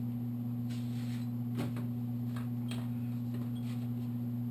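Scattered light clicks and taps of engine parts and tools being handled during a teardown, over a steady low electrical hum.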